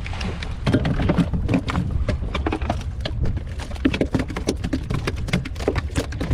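Freshly landed queenfish flapping on the boat's chequer-plate deck: rapid, irregular slaps and taps, over a steady low rumble.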